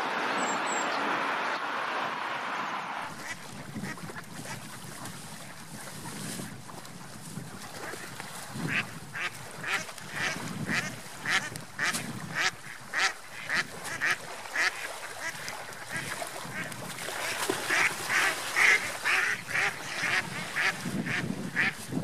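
Mallard ducks quacking: a long run of short calls, about two a second, busiest near the end. It opens with a steady rushing noise that cuts off about three seconds in.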